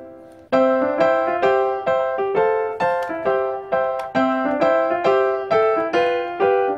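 Background music: a keyboard tune of short, quickly fading notes at a steady beat, with a brief break about half a second in.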